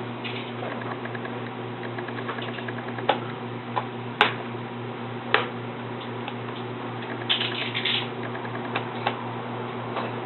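Scattered sharp clicks and taps of a laptop's hard plastic parts and small tools being handled, over a steady low hum; a short run of rattly clicking comes about three-quarters of the way through.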